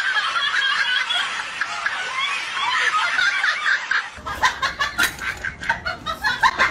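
Several people laughing together; about four seconds in the laughter changes to a choppier sound.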